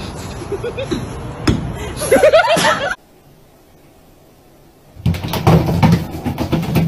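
A sharp knock-like impact about one and a half seconds in, followed by loud excited voices. After a brief quiet gap, water is poured from a bowl over a cat in a bathtub, splashing noisily.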